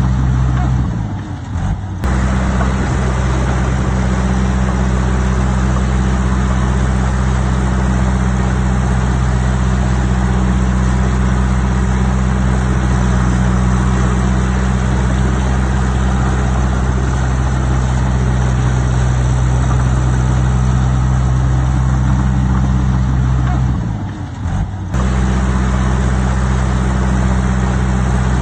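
Heavy construction-machine diesel engine running steadily at a constant pitch. The sound dips and breaks briefly about a second in, and again about four seconds before the end.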